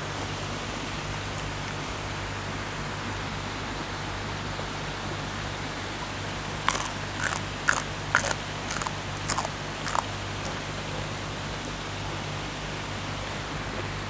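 Steady rushing of a small waterfall spilling over a stepped weir, with a run of about eight crisp crunches some seven seconds in as a person bites and chews a mouthful of raw greens.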